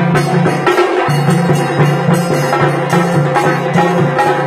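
Tassa drum ensemble playing a fast, dense rhythm of sharp drum strokes over a sustained low tone.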